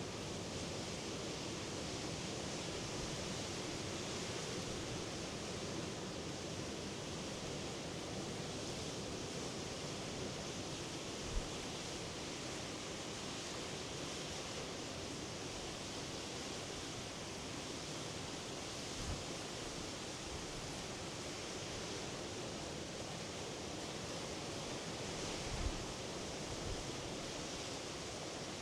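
Steady rushing wash of sea surf, without distinct separate wave breaks. Three brief low thumps stand out over it, spread through the stretch.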